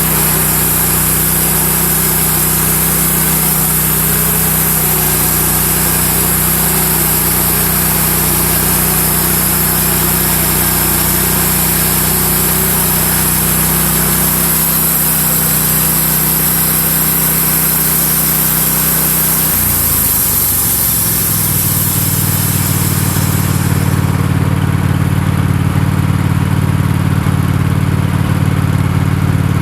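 Wood-Mizer LX150 bandsaw sawmill running, its band blade sawing through a red oak log over a steady engine note. About 20 seconds in the engine note changes, and a few seconds later the high hiss of the cut stops while the engine keeps running.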